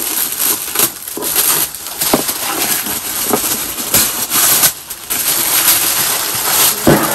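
Tissue paper and packaging wrap crinkling and rustling irregularly as they are pulled open by hand, with a sharper knock near the end.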